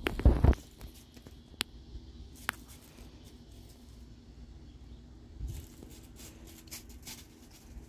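Kittens play-fighting and batting a small shiny toy on concrete: scattered light clicks and rustles, with a louder rustling thump right at the start and a flurry of small clicks near the end.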